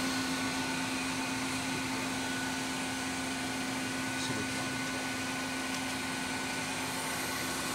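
Royal Master TG12x3 centerless grinder running with its main spindle switched on: a steady hum and even hiss with a faint constant high tone.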